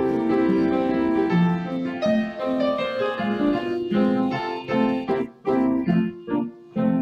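Upright piano playing the introduction to a song, chords under a melody line, with two short breaks about five and six seconds in.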